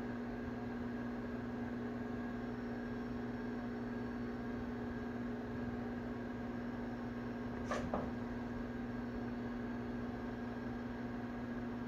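Steady electrical hum, one even low tone with fainter overtones. About eight seconds in comes a single brief tap.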